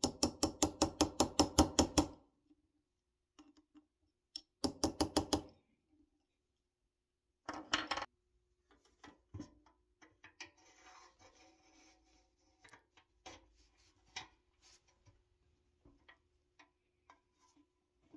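A small hammer tapping a metal cap onto the end of a toy truck's steel axle rod: quick runs of ringing metallic taps, about seven a second, in three bursts over the first eight seconds. After that come only faint light clicks and handling as the wheel and axle are fitted.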